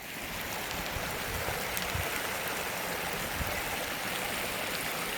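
Steady rush of running water at a small homemade timber dam holding a pool of rainwater.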